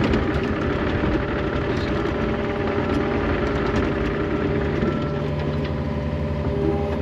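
John Deere 50G compact excavator's diesel engine running steadily while the boom and bucket dig, heard from inside the cab.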